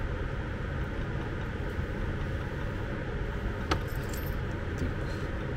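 Hands handling a compressor power cable and its small plastic fittings, with two sharp clicks, the first a little past halfway and the second at the end, over a steady low background noise.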